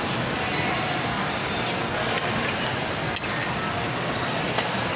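Food-court ambience: a steady background murmur of crowd chatter with scattered clinks of tableware, the sharpest a little after three seconds in.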